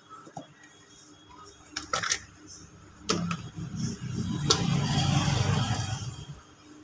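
Plastic oil can being opened by hand: a few sharp clicks of the cap, then about three seconds of scraping and rustling as the seal is worked.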